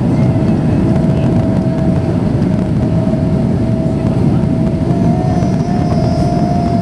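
Inside the cabin of a Boeing 777-200, the jet engines and rushing air make a loud, steady roar with a constant whine running through it, as the aircraft climbs after takeoff.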